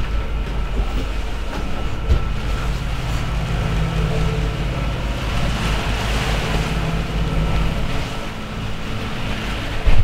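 Wind and sea noise aboard a sailing catamaran under way, over a steady low hum. A sharp knock comes at the very end.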